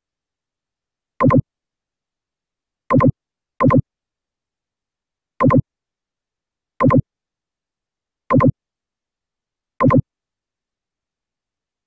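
Seven short, identical pop-like click sound effects, each a quick double pop, spaced irregularly one to two seconds apart with dead silence between them. They mark the mouse clicks of a screen recording as an image is selected and dragged in a drawing program.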